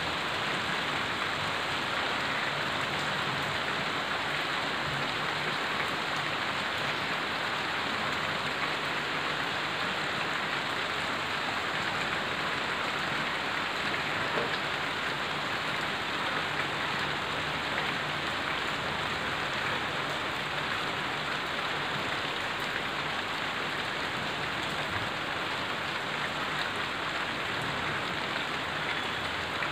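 Rain falling steadily.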